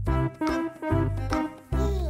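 Background instrumental music with a steady beat: notes struck about every half second over a bass line.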